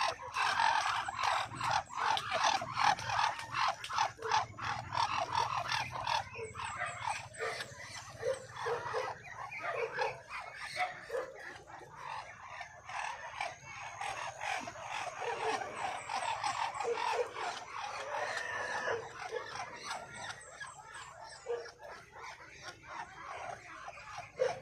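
Muscovy ducks calling: a dense run of short, rapid sounds, with faint high chirps now and then.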